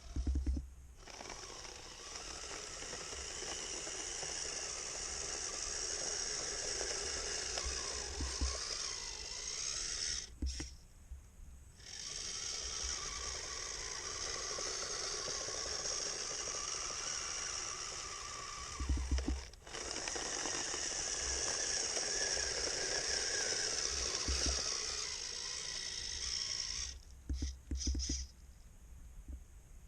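Snow being cleared: long stretches of steady scraping hiss, broken three times by short pauses with low thumps around them.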